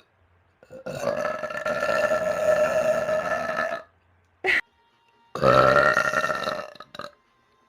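A person burping: two long burps held at a steady pitch, the first lasting about three seconds, the second about a second and a half, with a short sharp sound between them.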